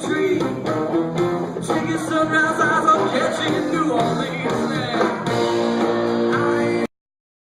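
Live rock band playing, with guitar to the fore. It cuts off abruptly near the end.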